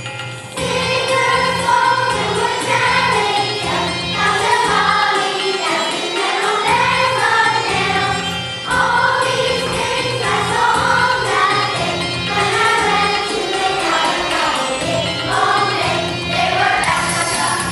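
Children's choir singing a song over instrumental backing, starting about half a second in.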